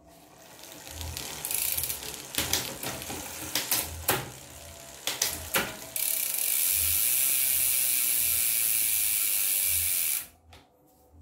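Bicycle rear drivetrain spun on its stand: the chain runs over the nine-speed 11-46t cassette and rear derailleur with several sharp clicks. From about six seconds in, the Raze Pro freehub's pawls buzz steadily as the wheel coasts, stopping suddenly about ten seconds in.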